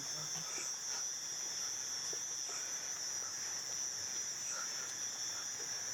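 A steady, high-pitched chorus of crickets and other night insects, unbroken throughout.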